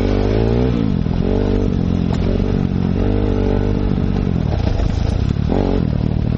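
Enduro motorcycle engine pulling along a dirt trail, its revs rising and falling several times as the rider works the throttle and gears.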